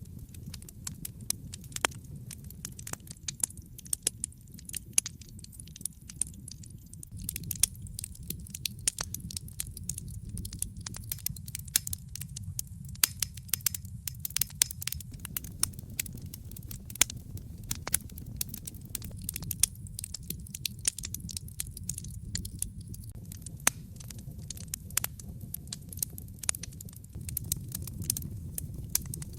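Wood fire burning in a fireplace: a steady low rumble of the flames with frequent sharp, irregular pops and crackles of burning wood.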